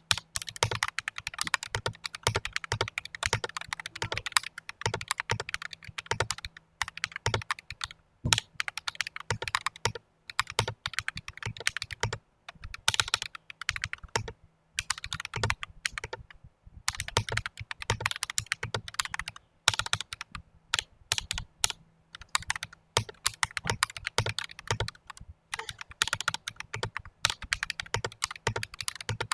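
Typing on a mechanical keyboard fitted with Akko CS Vintage White switches in a stainless steel plate: quick runs of keystroke clacks broken by short pauses.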